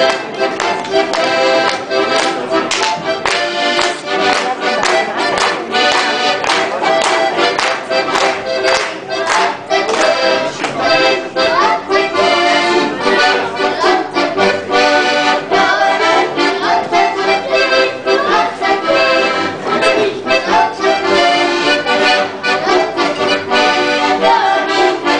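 Two Styrian diatonic button accordions (Steirische Harmonika, one a Bergmann) played together in a lively traditional folk tune, melody over a steady pulsing bass-and-chord rhythm.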